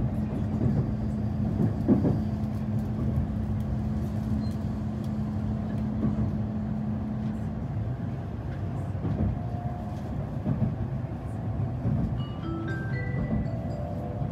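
Shinkansen Kodama bullet train giving a steady low rumble, with a low hum that fades out about halfway through. Near the end a bright, chime-like melody of quick rising notes begins.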